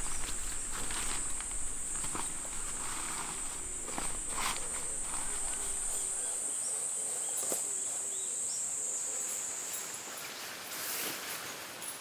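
Insects in the surrounding forest keep up a steady, high-pitched drone that cuts off about ten seconds in. Scattered light scuffs and clicks run alongside it, bunching more thickly near the end.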